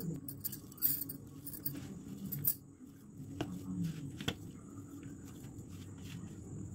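Kitchen utensils and vessels clinking and knocking a few times, most of it in the first half, over a steady low hum.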